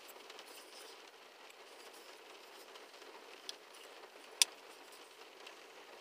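American Buffalo Grunt liner-lock folding knife being closed: one sharp click about four seconds in, with a fainter click a second before it, over a faint steady hiss.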